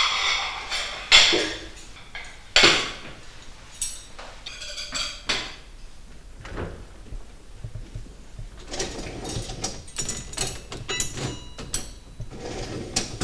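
Dishes and cutlery clattering as the table is cleared and a dishwasher loaded: a few loud knocks of plates and glasses in the first three seconds, then lighter clicks, and a run of metal clinks near the end as cutlery goes into the dishwasher's cutlery tray.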